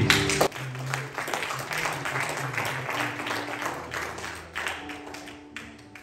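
Congregation applauding, thinning to a few scattered claps near the end, over quiet music playing underneath.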